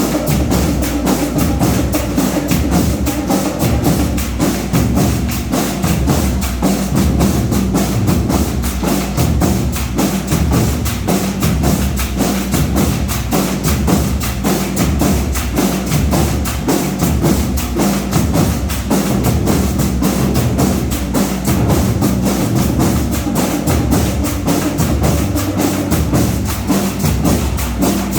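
Marching band playing: a fast, steady drum beat with pitched melody notes over it.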